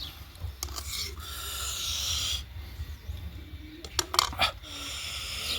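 A man breathing hard and hissing through his mouth between bites, with a few wet eating clicks. This is typical of someone cooling his mouth after very hot king chili pickle.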